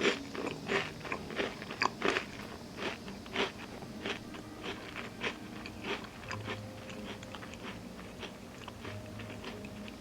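Close-up eating sounds: a person biting and chewing crunchy food with honeycomb, many crisp crackling crunches close together for about six seconds, then fewer and softer chews.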